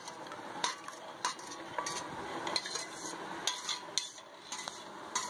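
A metal ladle stirring and scooping milkshake in metal pots, knocking and scraping against the rims and sides in irregular clinks about once or twice a second.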